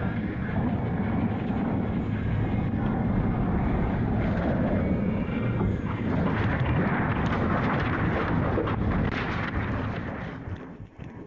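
Storm wind making a loud, continuous rushing noise that is heaviest in the low end, with no clear pitch. It dies down about ten and a half seconds in.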